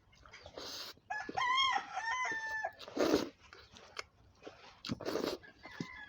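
A rooster crowing once, starting about a second in and lasting about a second and a half, with a few short noises before and after.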